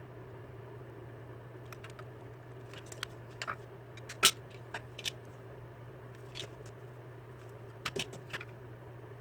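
Scattered light clicks and taps of small hard objects being handled, the loudest about four seconds in and a quick cluster near eight seconds, over a steady low hum.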